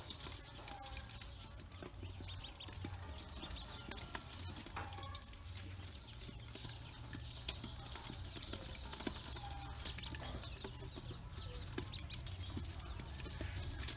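Pekin ducklings feeding from an aluminium basin: a busy, irregular patter of bills and feet tapping on the metal, with scattered short peeps.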